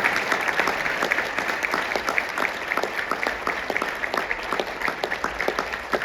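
Audience applause: many people clapping, slowly fading toward the end.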